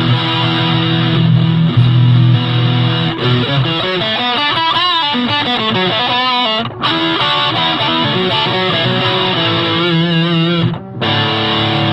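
Electric guitar played through a Big Muff–style fuzz pedal into a small amp: sustained, distorted chords. In the middle stretch the notes waver up and down in pitch, and the sound drops out briefly twice.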